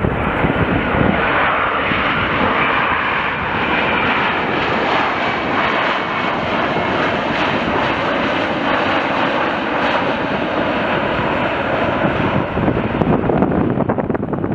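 Large jet airliner passing low overhead: a steady engine rush with a faint whine, over wind buffeting the microphone.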